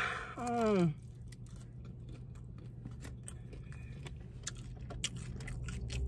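Close-up chewing of a mouthful of pizza crust: many small, irregular mouth clicks and soft crunches over several seconds.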